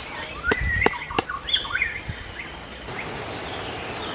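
Large knife blade chopping into hard earth: a few sharp knocks in the first second and a half, with birds chirping over them. From about three seconds in, only a steady outdoor hiss with occasional chirps.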